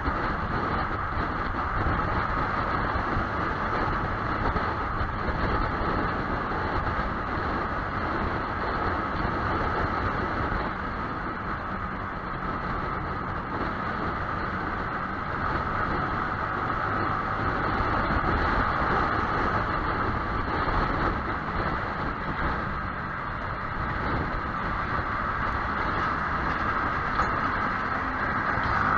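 Yamaha YZF-R15 sport motorcycle riding on the road: engine running under way with steady wind and road rush.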